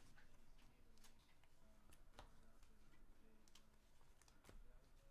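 Near silence with faint, irregular soft clicks and rustles of trading cards and a clear plastic sleeve or wrapper being handled.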